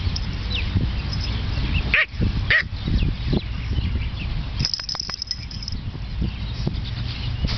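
Two long-haired Chihuahuas playing rough, one giving two short, sharp yaps about half a second apart, about two seconds in.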